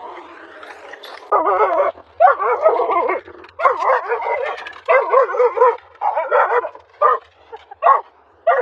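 A dog barking over and over in drawn-out, wavering barks, which turn into short, quick single barks near the end.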